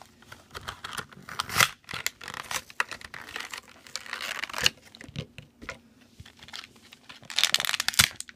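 Toy packaging being torn open and crinkled by hand, in irregular crackles and sharp rustles, with a dense burst of crinkling near the end.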